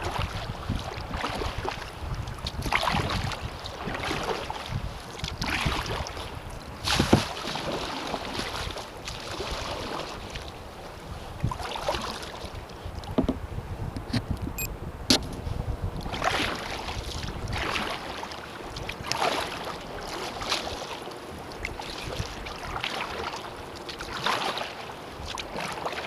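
Kayak paddle blades dipping and pulling through the water in a steady rhythm of about one splashing stroke every second and a half, with wind buffeting the microphone at the start.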